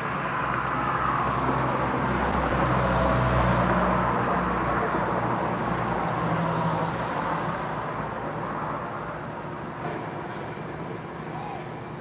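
A passing vehicle: a low rumble that swells over the first few seconds, peaks, and slowly fades away.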